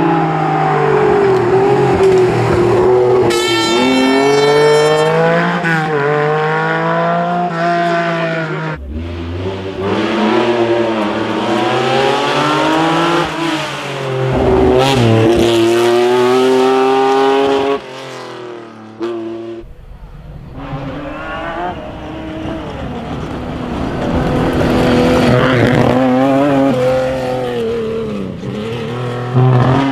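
Lancia Stratos HF rally cars with Ferrari Dino V6 engines being driven hard over several passes, the engine note climbing steeply and then dropping again and again as the drivers rev, shift and lift. The sound changes abruptly between passes, and is rougher and noisier in the last third.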